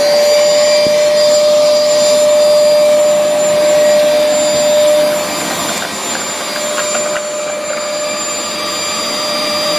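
Hoover Dual Power Pro carpet washer's motor running with a steady whine over a rushing hum, having just spun up; the level dips slightly about five seconds in.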